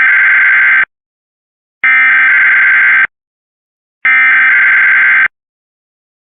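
Emergency Alert System SAME header: bursts of buzzing digital data tones about a second long, spaced about a second apart. The first burst is already underway and ends within the first second, then two more follow.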